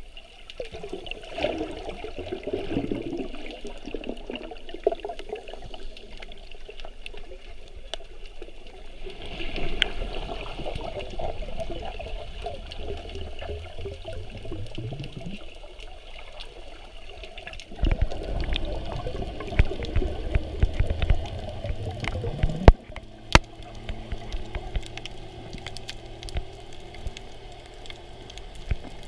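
Muffled underwater water sound picked up by a GoPro in its waterproof housing: water moving and gurgling, with a few gliding swishes. Near the end, a run of sharp clicks and knocks, the loudest about three-quarters of the way through.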